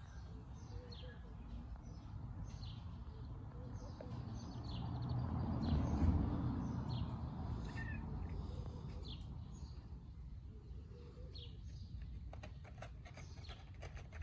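Small birds chirping over and over, short high chirps scattered throughout. A low rumbling swell of noise builds, peaks about six seconds in, then fades.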